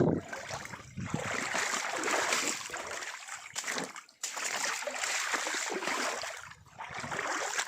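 Rushing, splashing water, in several stretches broken by short gaps.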